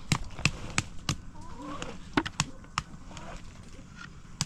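A steady run of sharp knocks, about three a second, with a pause of about a second partway through.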